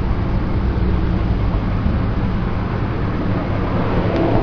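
Steady low outdoor rumble with a hiss over it, and a faint click a little before the end.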